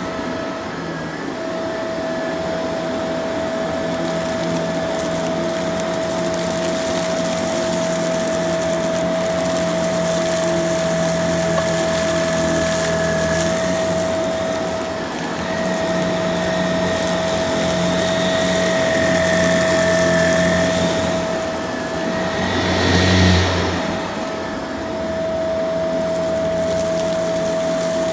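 Shark vacuum cleaner running steadily with a constant high motor whine and rushing air, a brief louder surge about three-quarters of the way through.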